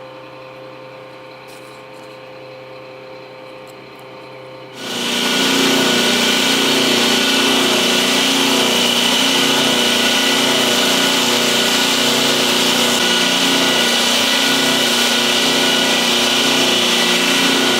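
A power tool switched on about five seconds in, then running steadily at full speed with a constant whine over a loud rushing hiss.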